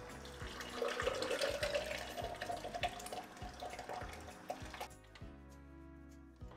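Kitchen tap running into a sink, water splashing for about four seconds and then stopping.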